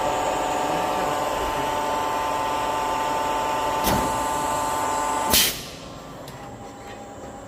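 Industrial machinery running with a steady, loud hum made of several steady tones. Near the end it stops after a short burst of hiss, leaving a much quieter hum, with a single click a little earlier.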